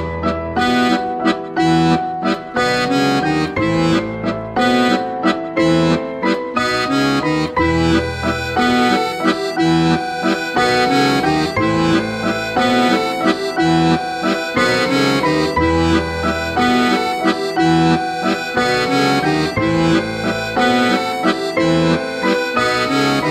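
Instrumental background music with sustained chords over a steady bass line.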